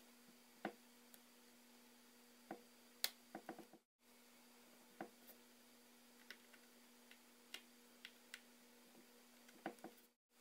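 Faint, scattered small clicks and taps of small tools on an iPhone 4S's parts during reassembly, over a faint steady hum. The sound cuts out briefly twice.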